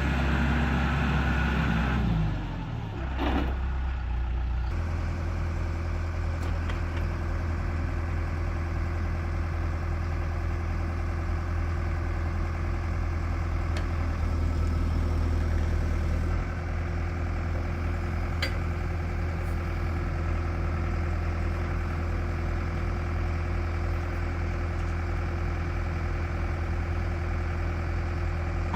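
John Deere 310SG backhoe's 4.5-litre four-cylinder turbo diesel running at raised speed with a whine, then dropping about two to three seconds in and settling into a steady idle.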